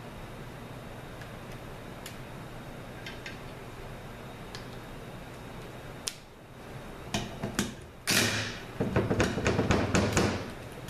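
A cordless driver on a transmission pump's Torx bolts: first a low steady hum with a few small clicks, then sharp clicks as the bit is handled and fitted. About eight seconds in, the driver runs for roughly two seconds with a fast run of knocks.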